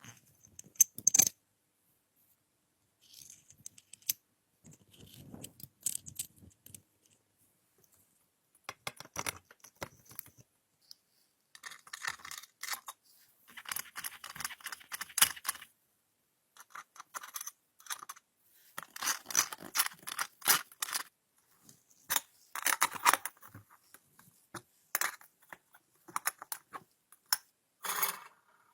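Irregular clicks, clinks and short scraping and rattling of hand work on small hard parts, likely metal, with brief pauses between.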